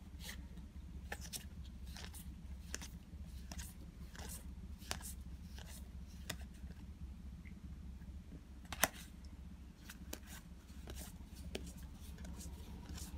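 Digimon trading cards being flipped one at a time from a handheld stack: light clicks and slides of card stock, about one or two a second, with one sharper snap about nine seconds in.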